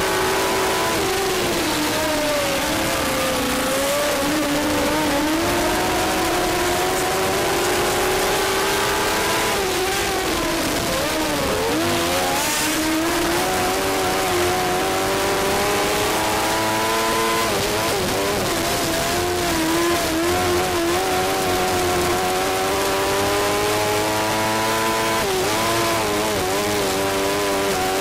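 1000cc micro sprint car's engine at racing speed, heard from the cockpit. Its pitch climbs steadily for several seconds at a time, then dips sharply and briefly about three times before climbing again.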